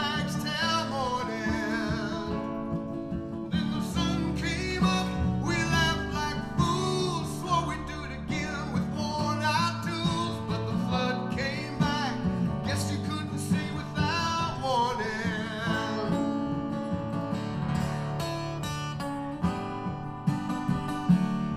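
Live acoustic band music: a strummed acoustic guitar keeping the rhythm under a lap-played slide guitar whose notes glide and waver in pitch.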